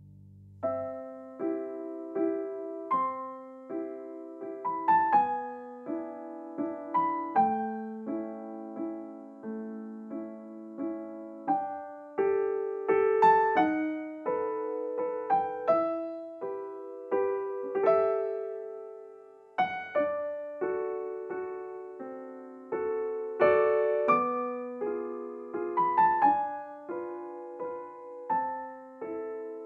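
Calm solo piano background music: a slow melody of single struck notes that each ring and fade, starting about a second in.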